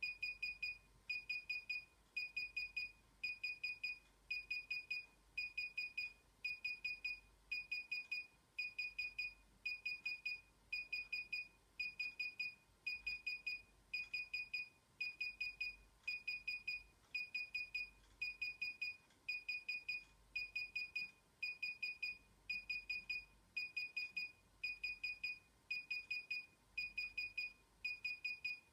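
DJI Inspire 1 remote controller beeping steadily while its firmware installs: a high electronic tone in quick clusters of short pips, repeating about once a second.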